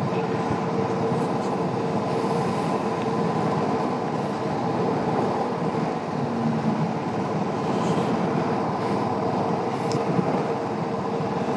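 Steady wind and road noise from a Royal Enfield Classic 350 single-cylinder motorcycle at cruising speed on a wet highway in rain: wind on the camera microphone, tyres hissing on the wet road and the engine blending into one constant rushing sound with a faint steady hum.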